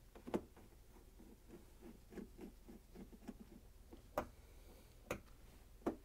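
Faint clicking as a Phillips screwdriver backs screws out of a dishwasher's outer door panel: a run of quick ticks, about five a second, in the middle, and a few sharper clicks near the start and the end.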